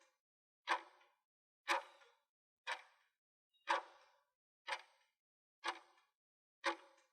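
Clock-tick sound effect of a countdown timer, sharp ticks evenly spaced about once a second.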